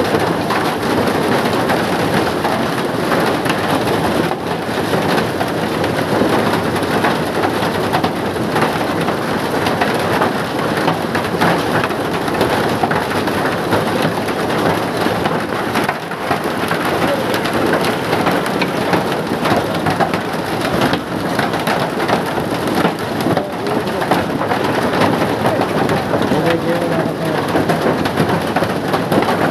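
Heavy rain pouring steadily: a dense, even hiss of drops striking surfaces.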